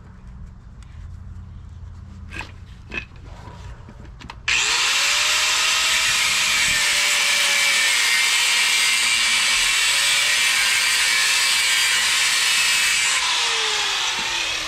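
A few light clicks, then about four seconds in an angle grinder starts suddenly and cuts into a steel axle tube with a loud, even grinding over a steady motor whine. Near the end it is switched off and the whine falls as the disc spins down.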